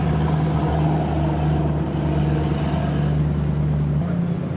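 Engine of the Q Boat stunt jet boat running at low speed in the water, a steady low drone. About four seconds in, the note steps up slightly in pitch.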